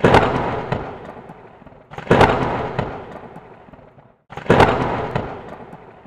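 Impact sound effects on the intro's word cards: a sudden bang that dies away over about two seconds, heard three times about two seconds apart.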